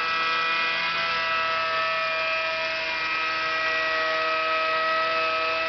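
Wet angle grinder with a 400-grit pad running steadily while beveling the edge of a fused glass panel: a steady motor whine over a grinding hiss, its pitch dipping slightly about a second in.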